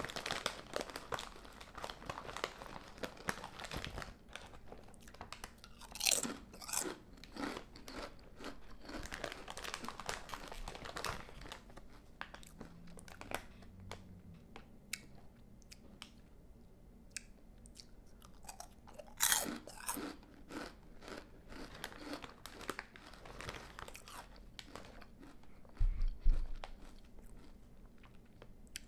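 A person eating Panera Bread potato chips close to the microphone: crisp crunches as chips are bitten, then chewing, over and over. Several bites are louder, one near the end with a low bump.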